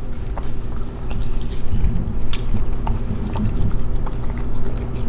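Bichon Frise dogs chewing watermelon from a bowl: irregular wet smacking and crunching clicks, over a steady low hum.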